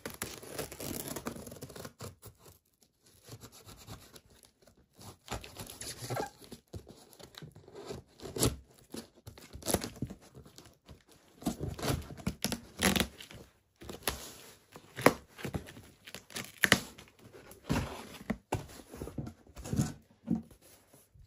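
Packing tape on a cardboard box being slit with a knife, then torn off and the flaps pulled open: a soft scrape at first, then a run of irregular sharp rips and scrapes.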